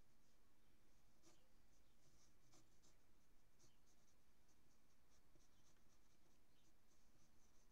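Faint pencil scratching on paper laid over a light pad: short, irregular sketching strokes.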